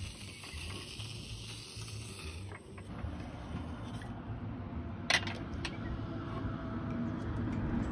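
A steady hiss from a portable gas stove heating sausages in a hot sandwich press, with one sharp metal clack about five seconds in as the press's lid is shut and latched.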